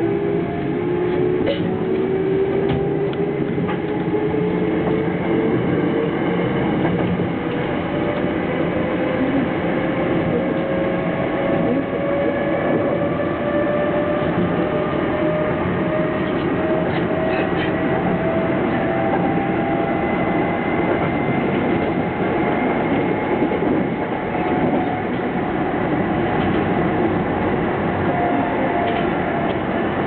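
Sanyo 5000 series electric train heard from the driver's cab while it picks up speed from a restart. Its traction motors give a whine that slowly rises in pitch over running noise from the wheels and rails.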